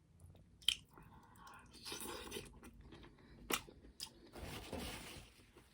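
Close-miked eating: chewing and biting into food, with sharp clicks about a second in and twice more later, between stretches of wet, rustly mouth noise.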